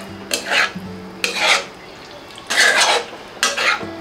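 A flat metal spatula scraping and stirring thick, creamy chicken tikka against the sides and bottom of an enamel-lined pan, in four separate strokes about a second apart.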